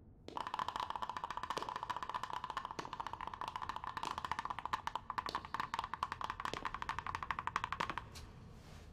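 A fast, even run of dry wooden clicks, like a rattled wood block: a cartoon clattering sound effect. It starts just after the beginning and stops abruptly about eight seconds in.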